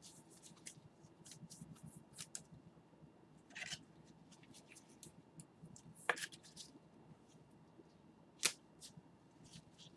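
Faint scattered clicks and rustles of trading cards being handled with gloved hands, with a couple of sharper clicks past the middle.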